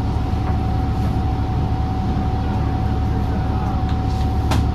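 A 2016 New Flyer XDE40 diesel-electric hybrid bus heard from inside while riding: a steady low rumble with a thin, constant high-pitched tone held over it. A sharp click sounds near the end.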